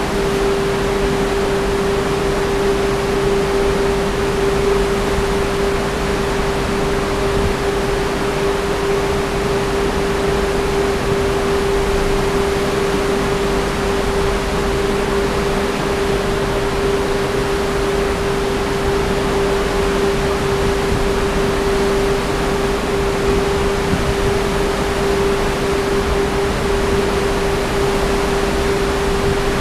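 Strong wind of about 50 knots rushing past a cruise ship's balcony and over the microphone as a loud, steady roar, with a steady whistle held under it.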